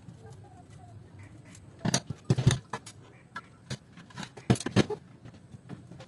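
Thin sheet-metal casing of a DVD player being handled and turned over, giving a few sharp metallic clanks and scrapes about two seconds in and again between four and five seconds.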